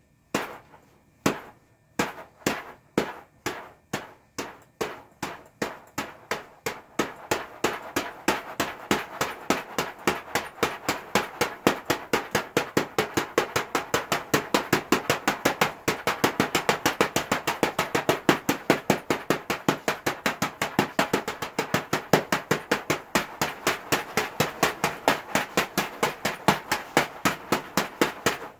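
Fists striking a wall-mounted Wing Chun punching bag in chain punches. There are a few separate hits at first, then a fast, even run of about four to five hits a second that stops abruptly at the end.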